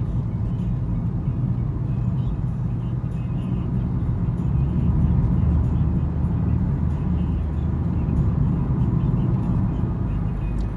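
Car engine and road noise heard from inside the cabin while driving, steady and low, growing a little louder about four seconds in.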